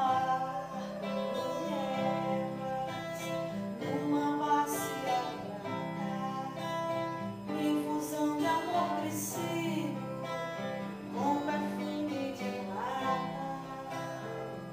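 Two acoustic guitars playing while a woman sings over them.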